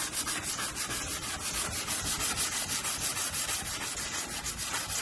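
Hand sanding of a fibreglass repair with wet-or-dry sandpaper wrapped around the soft foam side of a Kovax Candy Block, the paper rasping across the surface in quick, even back-and-forth strokes.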